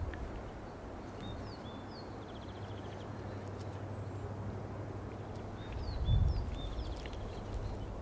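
A songbird singing short phrases of quick down-slurred high notes ending in a brief trill, repeated a few times, over a steady low hum and outdoor background noise. A soft low thud about six seconds in.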